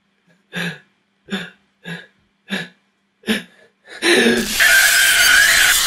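A man's short hiccup-like gasps, about five of them, one roughly every two-thirds of a second. About four seconds in, a brief vocal cry is overtaken by a loud, steady rushing noise.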